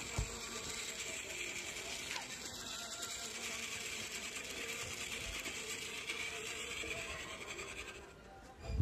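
Small solar-powered DC motor and plastic gear train of a toy robot car whirring steadily with a fine rapid ticking as it drives along. The whirr fades about eight seconds in, and a short thump follows at the very end.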